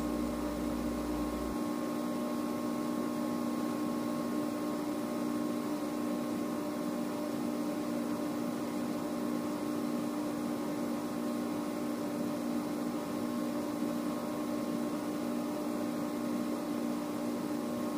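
Microwave oven running with a steady hum. A low rumble underneath stops about a second and a half in.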